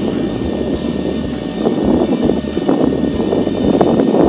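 Wind rumbling and buffeting on the microphone over a small inflatable boat at sea, a loud, uneven rush with no steady engine note.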